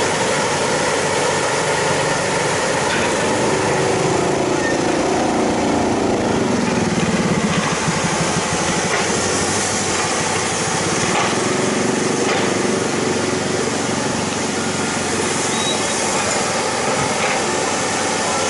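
Excavator's diesel engine running under working load, its pitch sagging as it labours around the middle and climbing again as the hydraulics are worked, with a few faint knocks.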